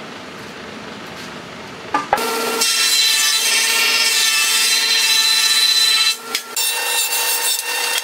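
Jointer running with a steady high whine as its cutterhead shaves the rough-sawn face of a board being fed across it, a loud cutting noise. It starts about two seconds in, breaks off briefly around six seconds, then resumes and stops suddenly at the end.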